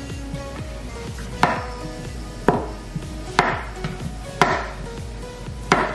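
Kitchen knife chopping soft boiled potatoes on a plastic cutting board: five sharp chops about a second apart, over background music.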